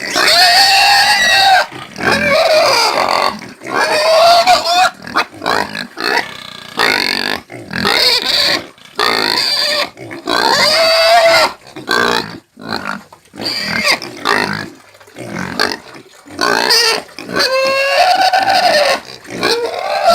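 Domestic pigs squealing: a string of loud, high-pitched squeals, each lasting up to about a second and a half, with short breaks between them.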